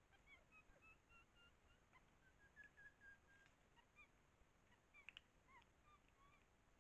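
Faint chorus of short, high chirping calls and whistles from wild animals, some notes held briefly, with a couple of sharp clicks about five seconds in.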